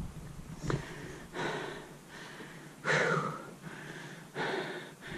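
A person breathing hard: a series of loud, noisy breaths about a second apart.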